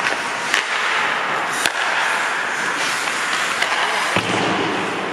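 Ice hockey play in a rink: several sharp cracks of sticks and puck striking, over a steady hiss of skates scraping the ice.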